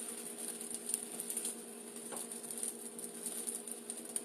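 Omelette crackling softly in a frying skillet, with a few light taps and scrapes of a spatula against the pan.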